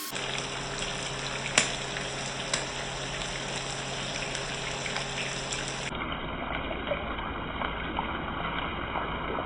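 Food sizzling in hot oil in a pan, a steady hiss with a few sharp clicks.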